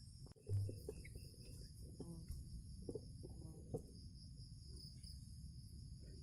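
Steady high-pitched chorus of insects such as crickets trilling over a low rumbling background, with a thump about half a second in and a few small knocks.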